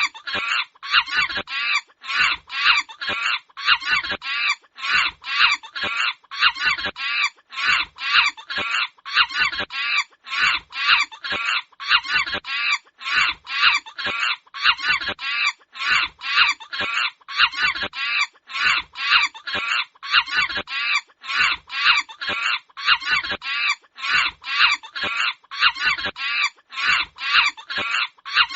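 Monkey screaming: shrill, pitch-wavering calls repeated rapidly and evenly, about three a second, without a break.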